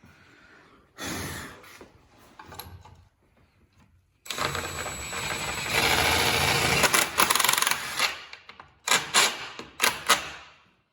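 Cordless impact gun driving a bolt in: a short burst, then one long rapid hammering run of about four seconds, then several short bursts as the bolt seats all the way in.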